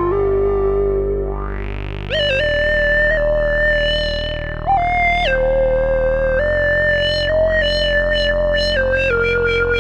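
Yamaha CS10 and CS01 analog monophonic synthesizers playing held notes that step from pitch to pitch, with the filter sweeping up and down. Near the end the sweeps come faster and faster.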